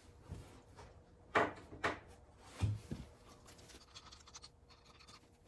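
Handling noises while refitting a golf cart wheel: four short sharp knocks about one and a half to three seconds in, then faint scraping.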